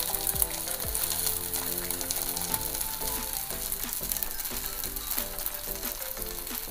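Potato-poha tikkis sizzling and crackling steadily as they shallow-fry in a thin film of oil on a dosa tawa, with faint background music underneath.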